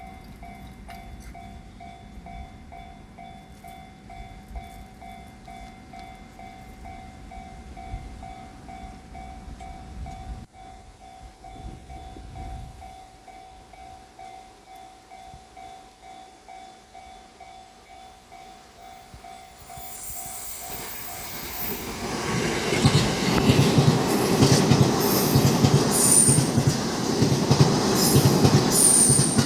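A level crossing warning bell rings steadily with its pulsing ding. About twenty seconds in, an E261-series limited express electric train passes over the crossing, its wheels knocking rhythmically over the uneven track. Brief high squeals come near the end.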